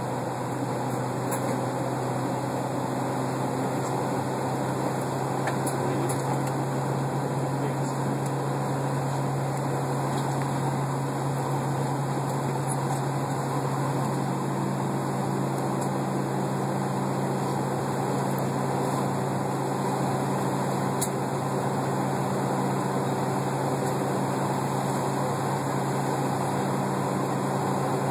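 Steady cabin drone inside a Boeing 757 on the ground, heard from a window seat beside the engine: an even rush of air with a low hum underneath. A second low hum joins about halfway through.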